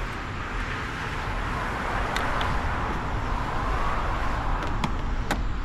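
Road traffic noise: a passing vehicle, swelling over a couple of seconds and then fading, with a few sharp clicks.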